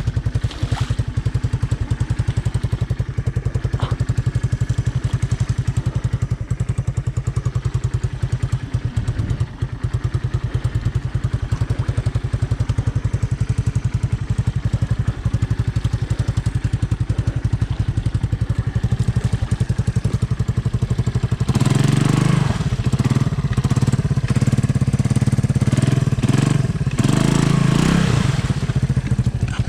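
Honda ATC 200M three-wheeler's single-cylinder four-stroke engine running steadily at low revs, then revved harder, louder and rougher, from about 21 seconds in until just before the end.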